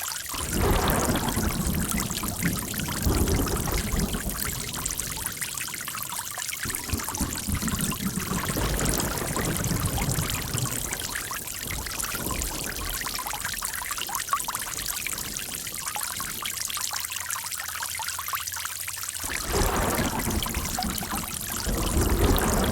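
Running water flowing and splashing steadily. It is heavier and fuller for the first twelve seconds and again from about nineteen seconds in, and the sound changes abruptly about six and a half seconds in and again near nineteen seconds.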